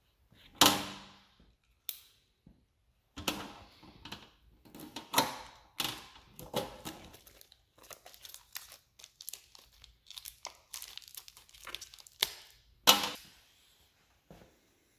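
Plastic fastener packaging crinkling and tearing as it is opened, with irregular sharp clicks of steel bolts and nuts being set down on a steel tool-cart tray. The loudest knocks come about half a second in and near the end.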